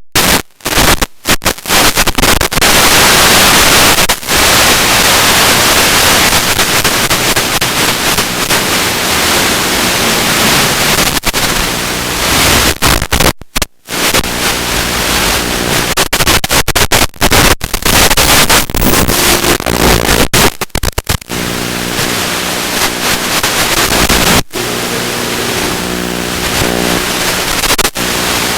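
Small FPV quadcopter in flight, heard as a loud steady hiss that cuts out briefly many times. In the last third, a buzzing pitched tone from the motors comes through under the hiss.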